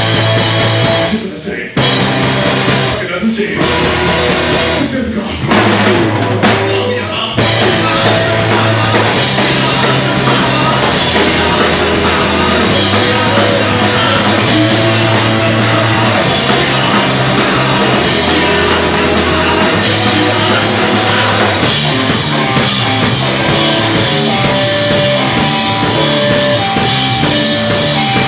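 Rock band playing live, drum kit and vocals over the band. The first seven seconds or so are stop-start hits broken by short gaps; then the band plays on without a break.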